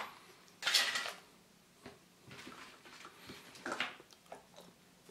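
Hands handling a small plastic toy and setting it down: a light click, then two short scraping noises, one about a second in and one a little before four seconds, with faint small clicks between.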